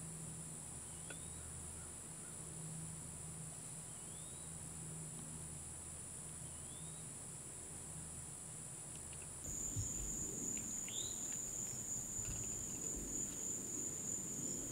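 Faint, steady high-pitched chorus of crickets and other insects, with a few short chirps every few seconds. About two-thirds of the way through the chorus shifts to a slightly lower, stronger note and low rumbles join it.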